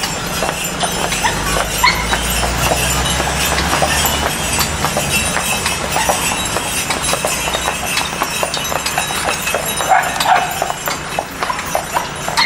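Horses' hooves clip-clopping on a hard street, an uneven run of sharp knocks, with a low rumble under the first few seconds.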